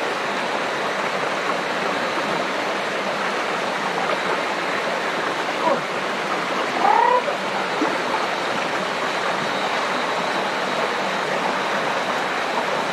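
Steady rushing of a shallow rocky stream, water flowing over and around boulders. A brief faint higher sound comes about seven seconds in.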